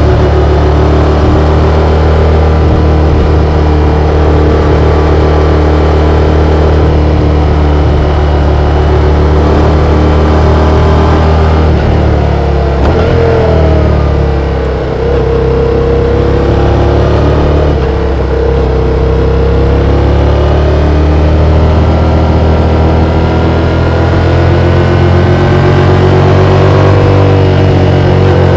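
Yamaha XSR700's 689 cc parallel-twin engine running under way, heard from the bike. The revs hold steady, drop briefly about halfway through, then climb again.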